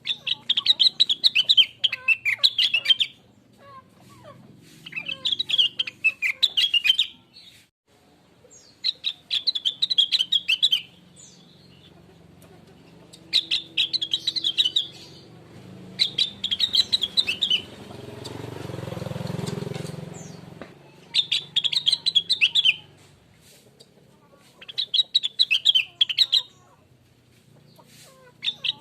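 A cucak rengganis (leafbird) singing in repeated bursts of fast, chattering, twittering notes, each phrase a couple of seconds long with short pauses between. Partway through, a low rushing noise swells up and fades away under the song.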